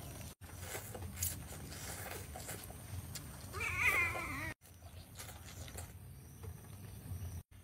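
A short, wavering, high-pitched call like a meow, about three and a half seconds in and lasting about a second, over low rumble and small clicks. The sound drops out abruptly three times where clips are joined.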